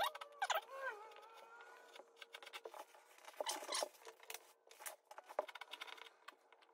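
Faint, short scratchy strokes and clicks of a utility knife blade scraping and shaving partly cured Bondo wood filler into shape on painted wood door trim, with a louder rasping burst about three and a half seconds in.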